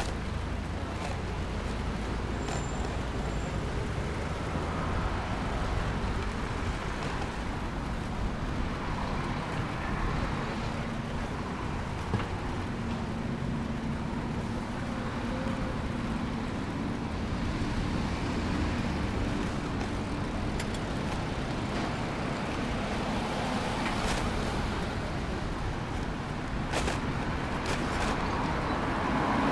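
Steady urban traffic noise, with a vehicle engine running for several seconds in the middle and a few sharp clicks near the end.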